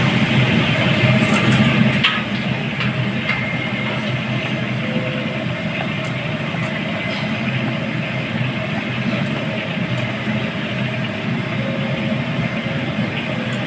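A steady machine hum with a hiss, a little louder for the first two seconds, with a few faint clicks of metal tongs against the stainless steel colander.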